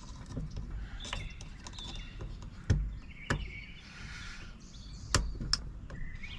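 Sharp, scattered metallic clicks and taps of small parts of a Baldwin mortise lock being handled and fitted together, about four clicks, with faint high chirps in the background.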